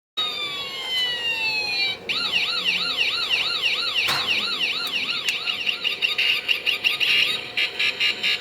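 A toy die-cast bus's electronic sound module playing a siren effect: a few falling sweeps first, then a fast rising-and-falling warble about three times a second, turning choppy near the end.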